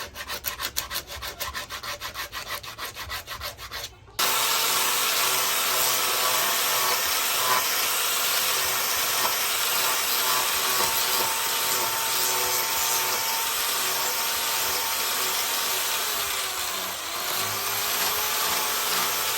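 Quick back-and-forth rasping strokes of a hand tool on steel. About four seconds in the sound cuts abruptly to a power grinder running steadily with a whine, its pitch dipping briefly and recovering near the end.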